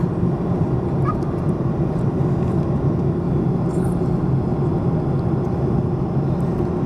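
Steady drone of an airliner's engines and rushing air, heard inside the passenger cabin.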